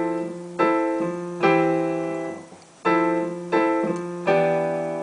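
Piano chords played in two groups of three. Each chord is struck and left to ring and fade, with a short break between the groups, and the last chord rings out near the end.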